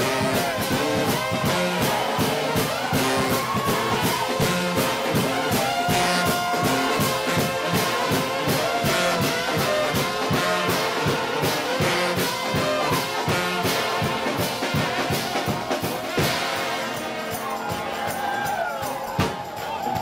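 A trombone shout band, a large brass choir led by trombones, playing loud and fast over a quick steady beat. Near the end the beat drops out, leaving held horn notes that bend up and down.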